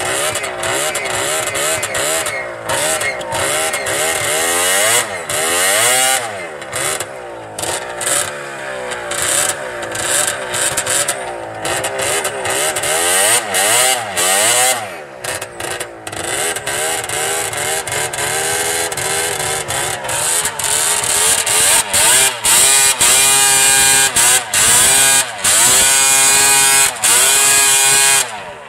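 A 600 two-stroke snowmobile engine running hard and unevenly, its pitch rising and falling as it revs, with many brief drop-outs while the sled pours smoke. In the last few seconds it cuts in and out rapidly at high revs, then stops abruptly.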